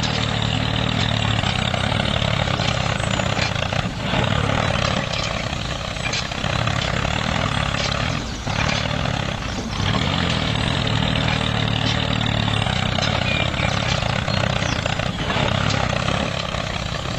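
A DIY mini combine harvester and wheat thresher running steadily, its motor humming under a dense, even mechanical noise, with a few brief dips.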